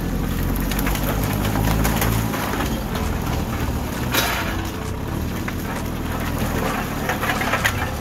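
JCB 3CX backhoe loader's diesel engine working under load as its front bucket pushes into brush and old timber, with branches and boards cracking and snapping; a sharp crack about four seconds in.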